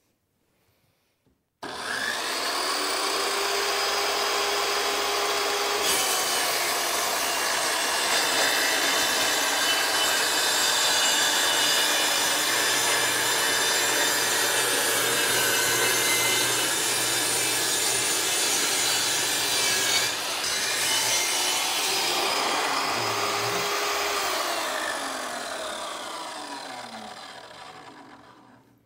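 Safety Speed Panel Pro 2 vertical panel saw starting abruptly and running as its circular blade crosscuts a sheet of plywood from top to bottom. Near the end the saw winds down and fades away.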